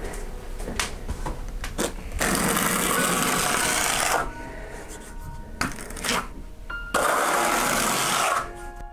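Steel plastering trowel scraping decorative plaster across a stencil on a wall in two long strokes, each about two seconds. A few short taps and scrapes of the tool come first.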